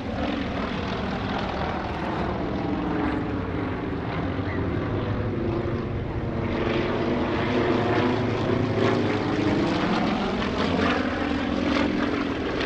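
Three Yakovlev Yak-52TW aerobatic planes, with Vedeneyev M-14P nine-cylinder radial engines, droning together as they pull through a formation loop. The engine note wavers a little in pitch and grows somewhat louder in the second half.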